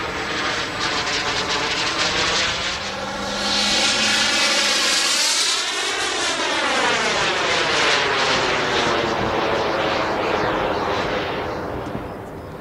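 Turbine jet engine of an Aviation Design Super Scorpion RC jet making a fast pass. Its hiss swells about four seconds in, sweeps past with a shifting, whooshing tone, and fades away near the end.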